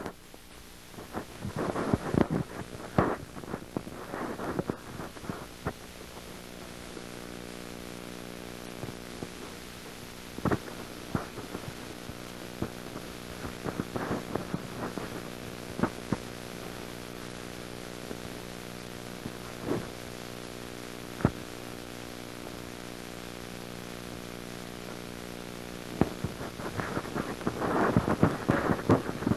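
A steady hum that sets in a few seconds in, with irregular clicks and crackles, thickest near the start and again near the end.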